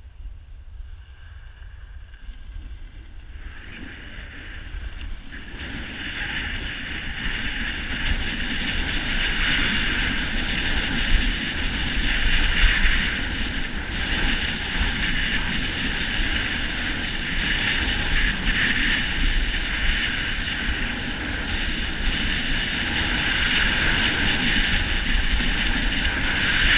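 Wind rushing over a skier's camera microphone, with a rumble low down, and skis hissing over snow during a downhill run. It grows louder over the first several seconds as the skier picks up speed, then holds steady.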